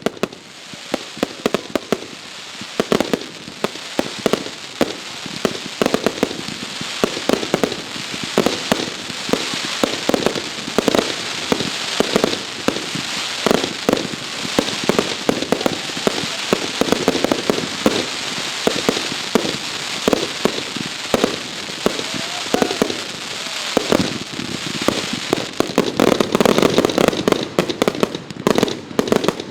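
Consumer fireworks show: a rapid, unbroken barrage of aerial shell bursts with crackling, starting abruptly and building to its loudest, densest bangs near the end.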